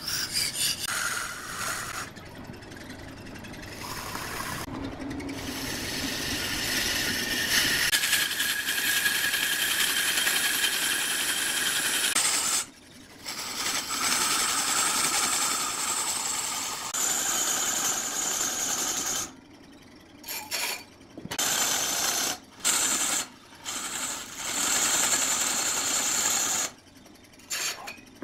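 Wood lathe turning, with a gouge cutting the spinning wood in a steady scraping, whirring cut. The cut breaks off briefly several times in the second half as the tool is lifted.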